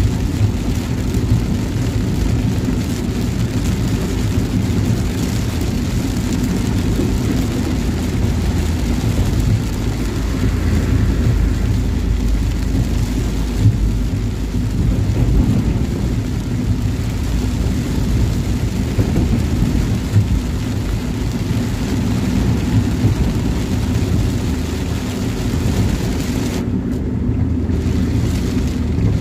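Steady engine and road rumble inside a moving vehicle on a wet road in heavy rain, with tyre spray and rain on the windscreen.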